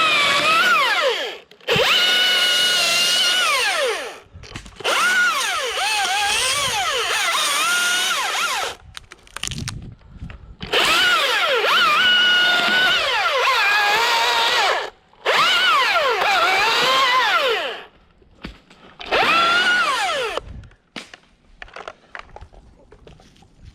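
Husqvarna T540iXP battery chainsaw cutting pine limbs in about six short runs with brief pauses between. Its high electric whine drops in pitch as the chain bites into the wood and climbs back as the cut frees.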